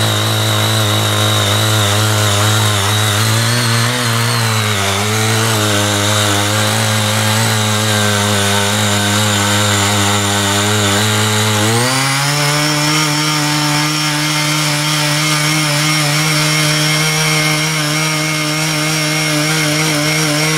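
Small petrol engine of a CY50 mini power tiller running steadily under load as its rotary tines churn moist soil. About twelve seconds in, the engine speeds up quickly and holds at the higher speed.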